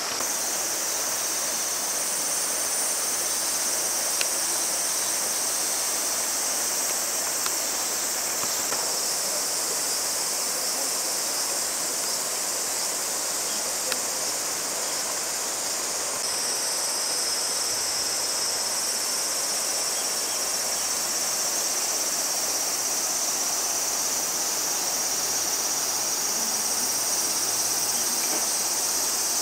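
A steady, high-pitched chorus of summer insects, shifting in pitch at a couple of points, over the rush of a stream.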